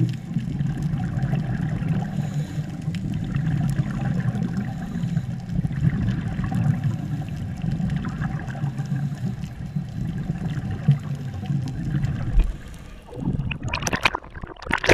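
Muffled underwater rumbling and bubbling heard through a GoPro's waterproof housing. Near the end there are two short splashing bursts as the camera breaks the water's surface.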